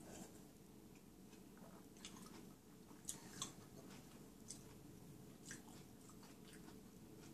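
Faint mouth sounds of someone drinking ramen broth from a glass bowl: a few short sips, slurps and swallowing clicks, the loudest a little after three seconds in.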